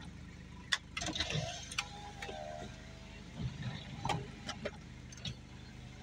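An engine idling steadily, with scattered sharp clicks and knocks over it and a brief wavering squeal about a second in.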